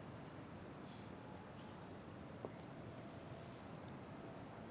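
Faint, high, evenly pulsing insect trill over low background hiss, with a small click about two and a half seconds in.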